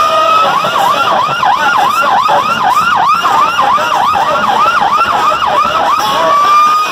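Siren-style whooping played at high volume through a Fiat Strada's car-audio rig of large speakers and tweeters. It is a rapid wail that dips and rises about three times a second, then settles into one long, slowly rising tone near the end.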